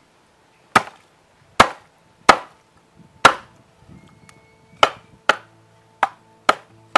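A large knife chopping through a raw pig's leg on a round chopping block: about nine sharp, loud chops, coming quicker in the second half. Soft background music comes in about halfway through.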